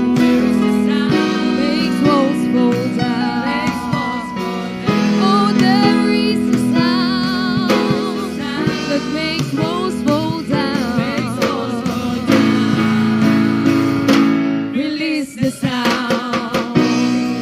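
Group of voices singing a worship song with guitar and band accompaniment, the loudness dipping briefly about fifteen seconds in.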